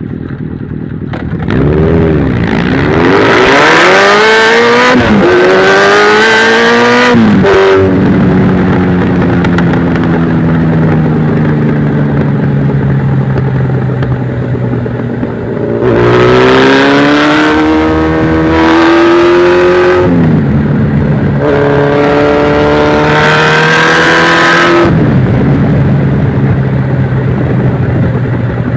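Yamaha XJR motorcycle's inline-four engine accelerating hard through the gears twice, the pitch climbing and dropping suddenly at each upshift. Between and after the two runs it holds a steady, slowly falling note.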